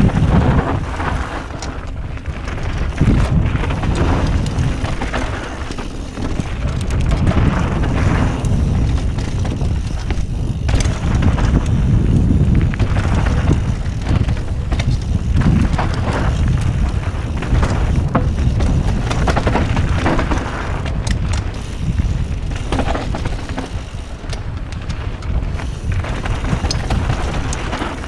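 A Canyon Torque mountain bike at speed down a dusty dirt-and-gravel trail: tyres rolling over loose ground, with frequent short knocks and rattles from the bike over bumps and roots. Heavy wind rumble on the microphone throughout, rising and falling with speed.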